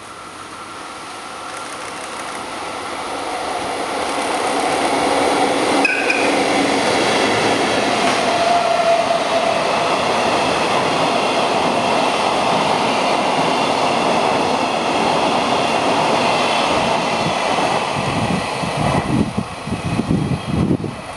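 Freight train hauled by an EF65 electric locomotive passing at speed: the noise swells as it approaches over the first few seconds, then a steady rumble and clatter of loaded flatcars with high ringing from the wheels. Near the end, as the last wagon goes by, the sound breaks into gusts of air buffeting the microphone.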